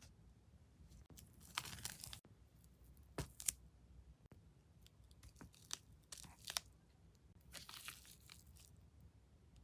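Packaging being crinkled and torn open by hand, in several short rustling bursts.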